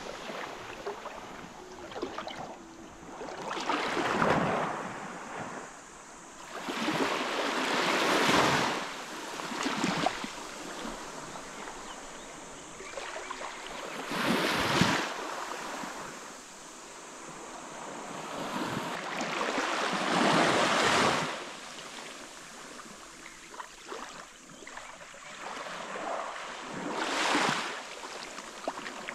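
Sea waves washing in and drawing back, a loud rush swelling and fading five times, every four to six seconds.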